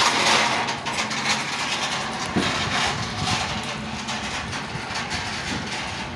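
An engine idling: a steady low rumble under a broad, even hiss.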